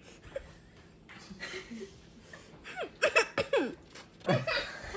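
A girl laughing in short, quick bursts that fall in pitch, starting about three seconds in, with a second short burst near the end; before that it is fairly quiet.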